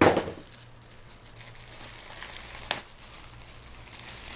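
Packaging crinkling and rustling as an item is pulled out of a box, loudest in a burst at the start, with a sharp click about two and a half seconds in.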